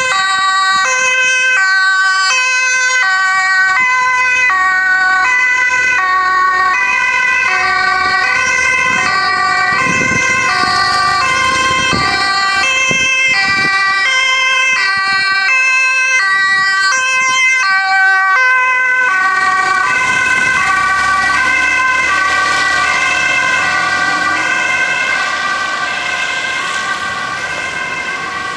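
Two-tone emergency sirens of an ambulance and its police motorcycle escort, alternating high and low without a break. The vehicles pass close, with tyres hissing on the wet road.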